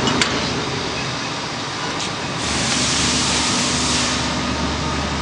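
A large knife grinding machine running with a steady low hum, a short click near the start, and a louder hiss from about two and a half to four seconds in.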